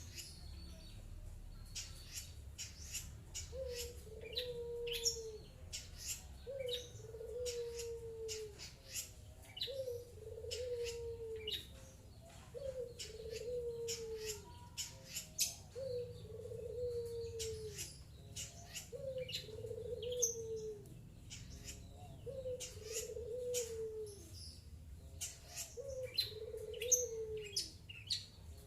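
Long-tailed shrike (cendet) calling with many short, sharp high notes, over a low hooting note that repeats about every two seconds.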